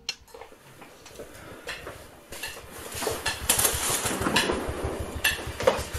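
A run of clattering knocks, sparse at first, then busier and louder from about two seconds in.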